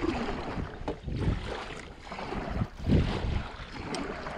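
A boat paddle stroking through lake water, with two louder strokes about a second and three seconds in, over a steady low wind rumble on the microphone.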